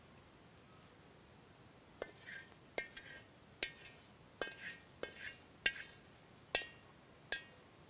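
About eight light, sharp clinks with a brief ring, starting about two seconds in and spaced under a second apart. They come from the wok's rim knocking against a small ceramic bowl as sauce is scraped out of the wok with a wooden spatula.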